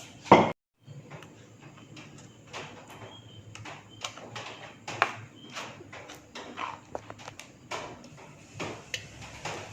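Kitchen utensils clicking and knocking irregularly against a pan and bowl while the next pancake is started, over a faint low hum. The loudest knock comes about five seconds in.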